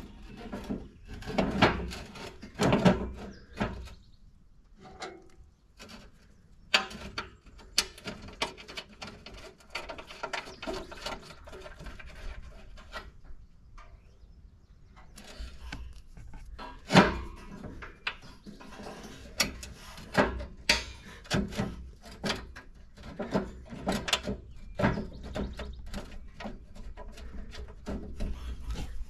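Irregular metal clinks, knocks and scrapes from hands working a bulldozer's wire fan guard while trying to fit the small bolt that holds the two guards together.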